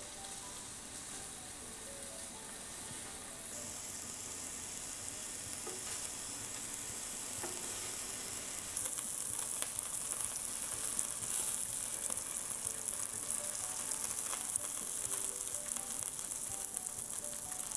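Cubes of A5 Wagyu beef sizzling as they sear in a hot diamond-coated nonstick pan. The sizzle grows louder about three and a half seconds in and again near nine seconds, with scattered pops and crackles of spitting fat.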